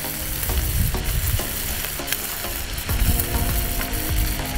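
Bacon frying hot and fast on a Blackstone propane flat-top griddle at 450–500 degrees: a loud, dense sizzle with sharp crackling pops of spitting fat. A low rumble runs underneath, swelling about a second in and again near the end.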